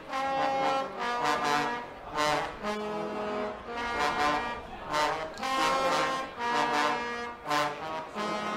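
Guggenmusik brass band striking up a piece: trumpets, trombones, saxophones and sousaphone playing loud chords together over a beat of snare drums, bass drums and cymbals.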